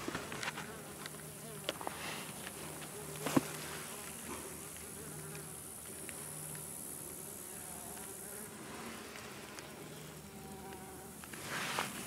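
A flying insect buzzing close by: a low, steady hum that fades and returns several times as it moves about. A few short knocks come through, the sharpest about three seconds in.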